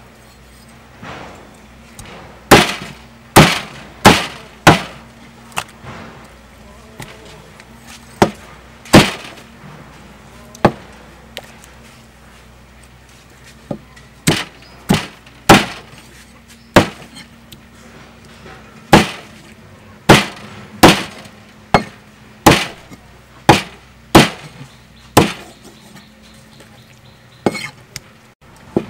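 Meat cleaver chopping a whole raw chicken into pieces on a round wooden chopping board: sharp, separate chops in irregular runs of several, with short pauses between the runs.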